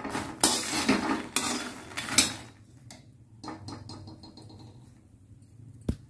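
Slotted metal spatula scraping and tossing fox nuts (makhana), almonds and cashews around a pan as they roast. Loud scrapes and rattles come in the first two seconds or so, then softer stirring, and a sharp click near the end.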